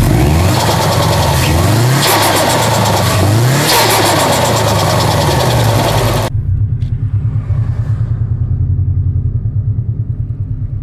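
Car engine revved hard several times, its pitch climbing and dropping with each blip. About six seconds in it gives way abruptly to a lower, steady engine rumble.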